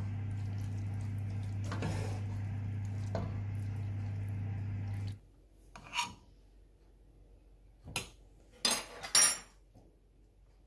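A steady low hum with a few clinks of cookware, cutting off suddenly about five seconds in. Then a metal spoon clinks and scrapes against a pan and a plastic food container, with the loudest clinks, a close pair, a little past halfway.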